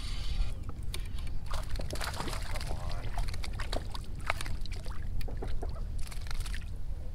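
Clicks, knocks and rattles of a rod and reel being handled in a fishing kayak, over a steady low rumble, with a short hiss about six seconds in.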